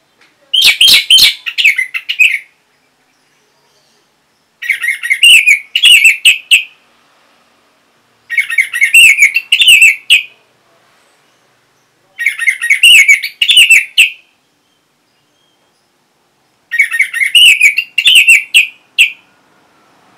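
Orange-headed thrush singing: five rapid, high song phrases of about two seconds each, separated by pauses of about two seconds.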